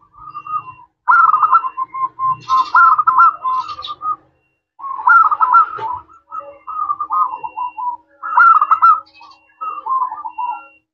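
Zebra dove (perkutut) singing: about six phrases of quick, rolling coos, separated by short pauses.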